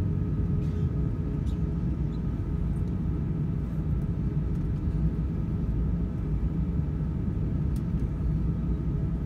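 Steady low rumble inside a jet airliner's cabin as it taxis, the engines at low power and the wheels rolling over the taxiway, with a faint steady hum over it.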